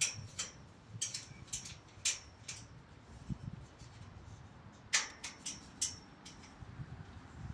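Sharp, light metallic clicks and snips from hand work on a joint of a greenhouse's galvanized steel pipe frame, a few a second, in two bursts. The loudest click comes about five seconds in, over a low rumble.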